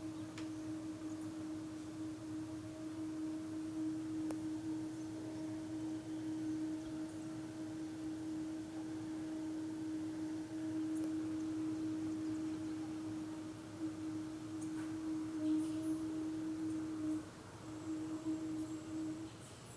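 A steady, unexplained humming tone coming from the sky, holding one pitch with a fainter overtone above it. It breaks off briefly about seventeen seconds in, returns, and stops just before the end.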